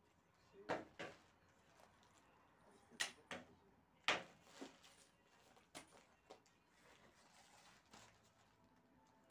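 A scattered series of short, sharp knocks and clicks, about nine in all, with the loudest about four seconds in. These are things being handled and set down in a small room.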